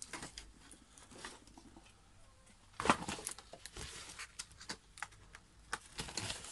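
Rustling and light clicks of things being handled on a workbench, with one sharp knock about three seconds in.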